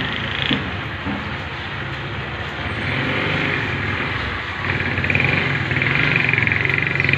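A steady engine drone, louder in the second half.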